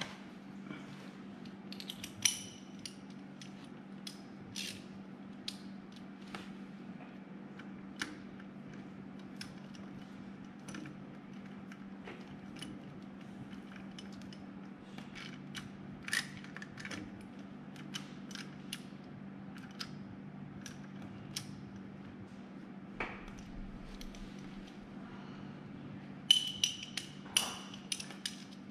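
Hand ratchet clicking in short spells, with metal taps of the socket and tools, as the drain and fill plugs on a mini excavator's track drive motor are tightened after topping off its gear oil. A steady low hum runs underneath, and the clicks come thickest near the end.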